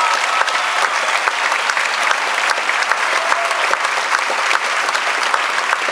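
Theatre audience applauding steadily, a dense mass of clapping hands.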